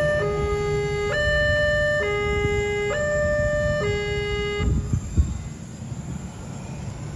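Railway level-crossing warning alarm sounding a two-tone hi-lo signal, switching pitch about once a second, and stopping about four and a half seconds in; two low thumps follow over a steady traffic rumble.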